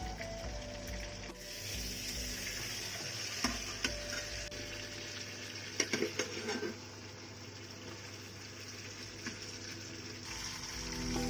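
Pomfret pan-frying in hot oil, a steady sizzle. There are a few sharp knocks and scrapes of a utensil on the pan around the middle.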